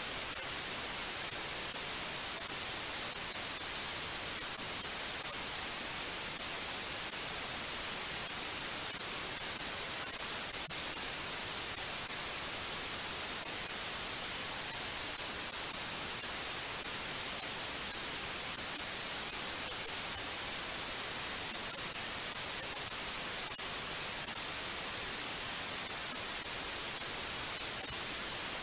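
Steady white noise: an even, unbroken hiss, brightest in the high treble, with no change in level.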